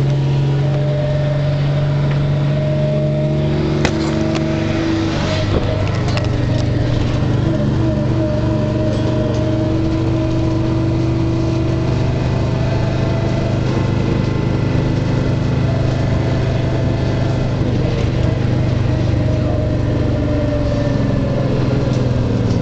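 New Flyer D40HF transit bus's diesel engine and drivetrain heard from inside the moving bus: a steady, loud drone whose pitch drifts up and down as the bus speeds up and eases off. A few sharp rattles and clunks from the bus about four to seven seconds in.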